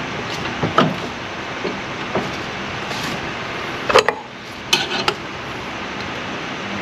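A few sharp knocks and clinks of tools and parts being handled during work on a vehicle's engine bay, the loudest about four seconds in and a quick cluster near five seconds, over a steady background hiss.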